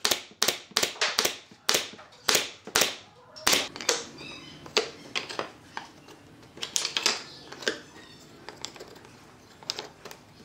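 Brad nailer firing a quick series of sharp shots into pallet-wood strips, about eight in all, stopping about three and a half seconds in. After that, softer scattered knocks and clatter of wood strips being set down on plywood.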